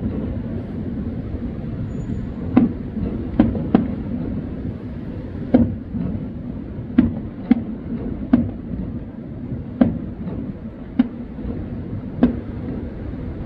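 Distant aerial fireworks bursting: about ten sharp bangs at irregular intervals over a steady low rumble.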